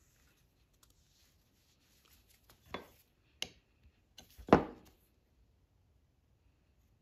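Light scraping, then three knocks on a wooden tabletop while an epoxy-coated brass pen tube is pushed into a segmented wood pen blank with a metal insertion tool. The knocks come about three seconds in, again half a second later, and loudest about four and a half seconds in.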